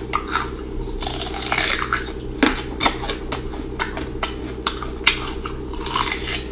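Crisp crunching bites and chewing of a large piece of raw ginger root, heard as irregular sharp crackles several times a second. A steady low hum runs underneath.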